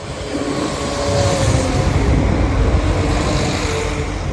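Diesel train passing over the level crossing at close range: a steady rumble and hiss of wheels on rail, with faint engine tones, loudest in the middle.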